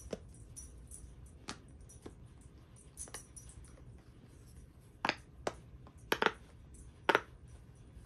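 Small silicone pop-it fidget toy having its bubbles pushed through, giving scattered soft pops, with a handful of louder, sharper pops about five to seven seconds in.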